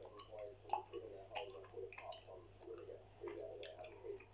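Close-miked gum chewing: irregular wet, sticky clicks and smacks from the mouth working a piece of gum, several a second, with faint TV football commentary murmuring underneath.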